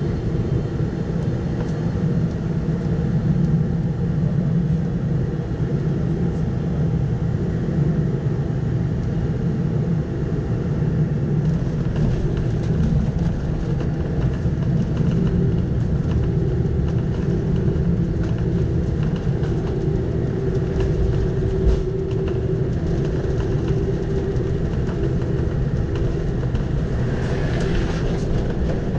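Cabin noise of a Boeing 747-400 heard from a window seat over the wing during the last of the approach and the landing roll: the steady, loud rush of its jet engines and airflow with a low rumble, and a few faint knocks in the middle.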